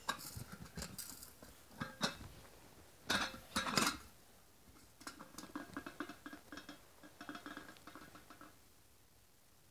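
Camping cook-set pans and lids clinking and knocking together as they are handled. The loudest knocks come about two seconds and three and a half seconds in, followed by lighter rattling.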